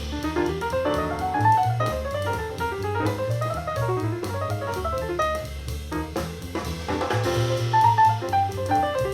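Instrumental music with a drum kit, a bass line and a melody running up and down in quick notes, played through a home-built Bluetooth boombox with two Dayton Audio ND90 3.5-inch full-range drivers.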